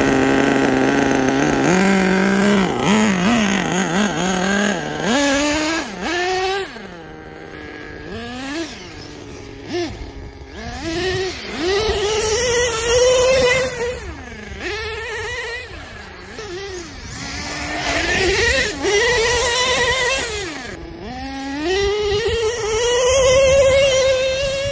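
Small nitro engine of an HPI Savage X 4.6 RC monster truck (an LRP .32), first running steadily, then blipped from about two seconds in. After that it revs up and drops back again and again every second or two as the truck is driven, with one longer climb in revs near the end.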